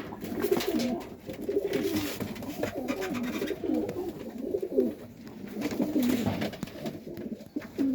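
Domestic pigeons cooing in a loft: several birds' low, overlapping coos go on without a break.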